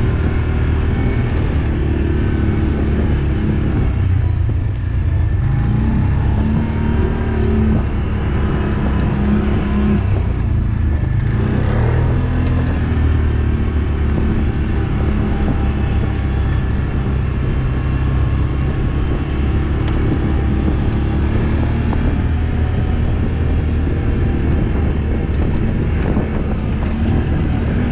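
Quad (ATV) engine running steadily as the quad is ridden, its note rising and falling a little with the throttle.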